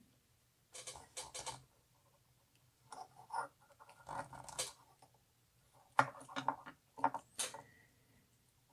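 Faint, scattered clicks and scratches of a thin metal tool and fingers working the small retaining clip onto the shaft of a micro brushless quadcopter motor.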